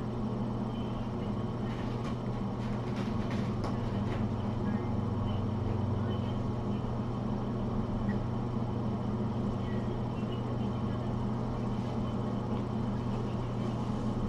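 A steady low hum runs throughout, with a few faint clicks and rustles about two to four seconds in.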